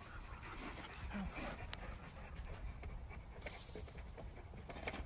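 A German Shepherd panting.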